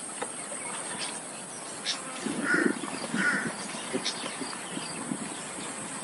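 A flock of dark birds calling harshly, with two short loud calls close together about halfway through and scattered fainter calls around them. A steady high hiss lies underneath throughout.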